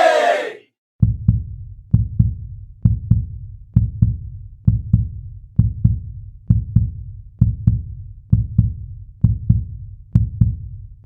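Heartbeat sound effect: a steady lub-dub of paired low thumps, about one beat every 0.9 seconds, starting about a second in.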